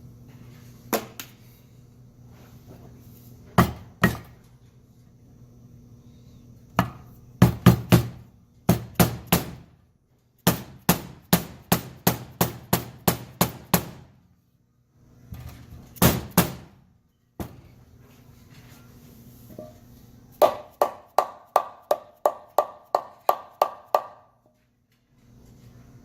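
Hammer strikes tapping polyurethane differential-mount bushings into a BMW E36 differential cover, in runs of quick blows about three a second with pauses between; the last run rings with a metallic tone under each blow.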